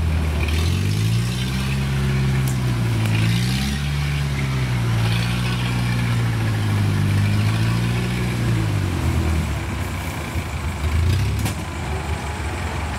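Kubota DC-70 combine harvester's diesel engine running steadily. Its pitch rises about a second in, sags briefly around four seconds, then drops near nine seconds as the load or throttle changes.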